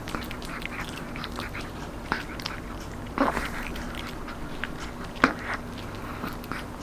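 A chihuahua crunching and gnawing a crispy dried duck knee-cartilage treat: irregular crisp crunches, the sharpest about three seconds in and a little after five seconds.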